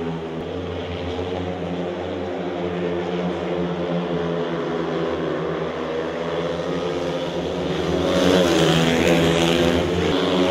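Several speedway bikes' single-cylinder 500 cc methanol engines running flat out in a race, a steady howl whose pitch dips and rises as the riders slide through the bends. It grows louder about eight seconds in.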